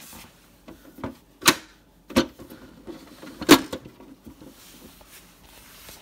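Plastic knocks and clunks as the water tank of a Honeywell dehumidifier is pushed back into its slot, with four sharp knocks, the loudest about a second and a half and three and a half seconds in.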